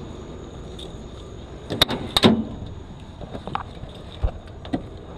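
Knocks and clunks from working an old Mercury car's hood open with a pry bar: two loud knocks close together about two seconds in, then a few lighter taps.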